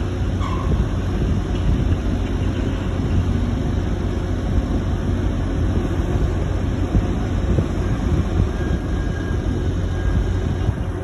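Steady low mechanical rumble of a crane's machinery running while it lowers a grapple load of logs.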